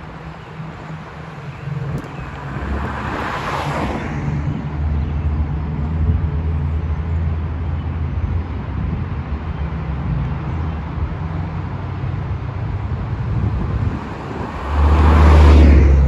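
City street traffic: a steady low rumble, with two vehicles passing close by, one about three seconds in and a louder one near the end, each a rising and fading rush of tyres on asphalt.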